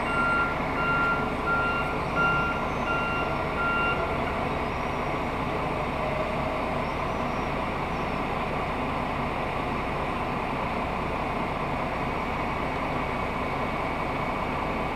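A vehicle's backup alarm beeping repeatedly at one pitch for the first four seconds or so, then stopping. Under it is a steady engine hum that carries on throughout.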